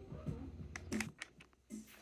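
Light clicks and taps of plastic toy kitchen parts being handled and fitted together, with a quick cluster of sharp clicks about a second in.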